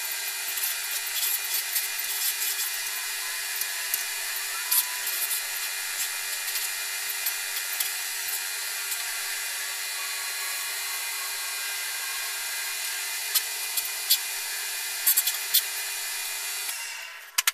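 Small wood lathe running steadily while abrasive paper is held against a spinning celery wood pen blank: a steady motor whine under a sanding hiss, with a few light clicks. The sound stops about a second before the end.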